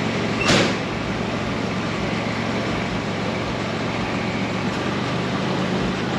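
A single sharp bang about half a second in, over a steady low mechanical hum.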